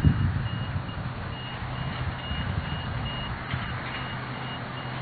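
Vehicle reversing alarm beeping steadily, about two high beeps a second, over a low engine hum.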